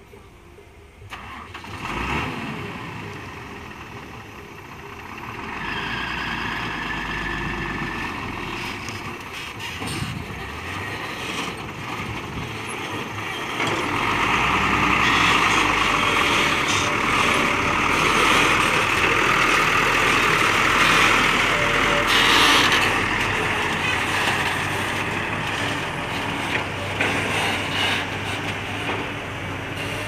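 Heavy diesel dump truck engine running, growing louder about halfway through, with people's voices.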